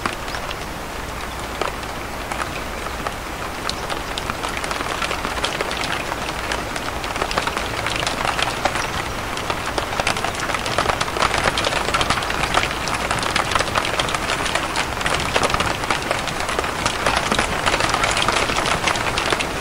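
Steady rain pattering on a surface: a dense hiss of many small drops, getting a little louder after the first few seconds.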